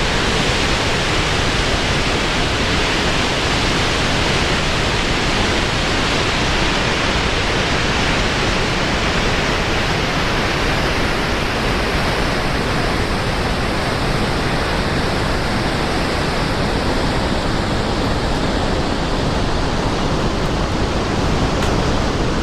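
Snoqualmie Falls in record flood, a massive waterfall giving a steady, dense rush of falling water.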